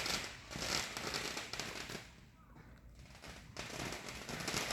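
Fireworks crackling in dense rapid pops, easing off for about a second and a half in the middle before picking up again.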